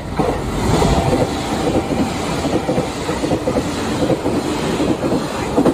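JR Kyushu 885 series electric express train passing through the station at speed, its wheels rumbling and clattering over the track. The noise stops abruptly at the end.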